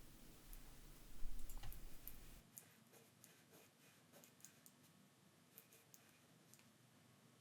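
Faint, scattered clicks and taps of small parts being handled during a phone screen repair, as the display's flex cable is pressed onto the back of the new screen. They come most often between about one and two and a half seconds in, then thin out to occasional ticks.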